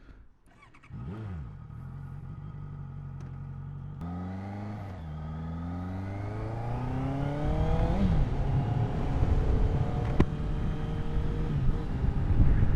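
Honda CBR650F inline-four engine breathing through an aftermarket Ixil exhaust. The engine note comes in about a second in and holds steady, then from about four seconds in rises through the revs in pulls broken by gear changes. Wind noise builds as speed picks up.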